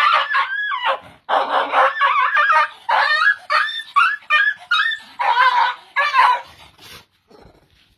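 High-pitched squeals and yelps from a dog and a small monkey wrestling. A rapid string of short calls, rising and falling in pitch, that stops about seven seconds in.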